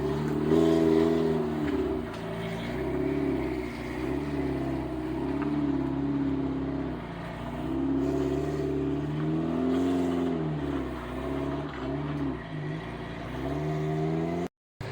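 Off-road vehicle engine revving up and easing off again and again, the pitch rising and falling every second or two. The sound drops out briefly near the end.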